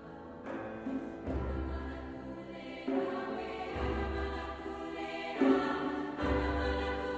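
Background music: choir-like voices holding sustained notes that change every second or so, over a deep bass note that returns every couple of seconds.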